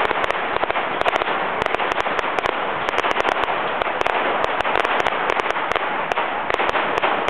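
Aerial fireworks bursting in a dense, continuous crackle of many rapid sharp pops.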